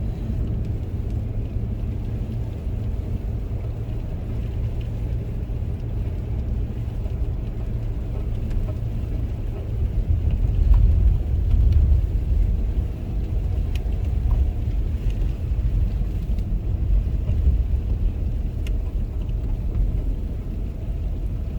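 Steady low rumble of a car's tyres and drivetrain heard from inside the cabin, driving slowly on a snow-covered road. It swells briefly about halfway through.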